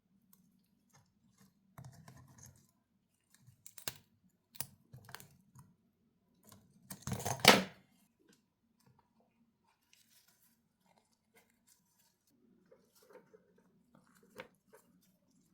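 Hand-work noises on a vintage lighter: scattered small clicks and taps, with one louder, noisy sound lasting under a second about seven seconds in.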